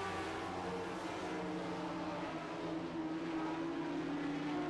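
Several lightning sprint race cars running flat out together, their engine notes overlapping and wavering slightly in pitch.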